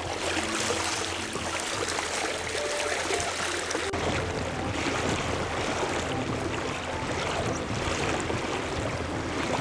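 Lake water swishing and splashing along the side of a small inflatable boat and around a hand trailed in it, with a steady low rumble that grows stronger about four seconds in.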